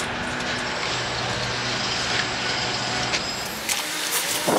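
An engine running with a steady hum that stops about three seconds in, followed by a few light clicks.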